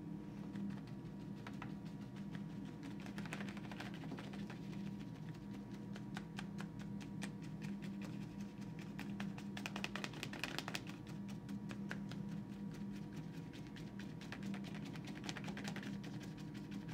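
Paintbrush dabbed up and down on watercolour paper: a quick, uneven run of light taps, thickest about three, ten and fifteen seconds in, over a steady low hum.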